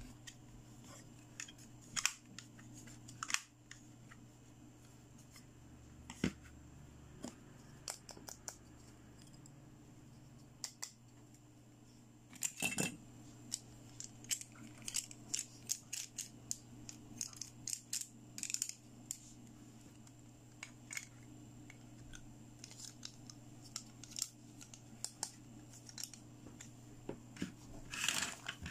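Hard plastic toy pieces clicking and tapping as they are handled and snapped together into a toy dentist chair: scattered sharp clicks, turning into quick clusters about midway and again near the end.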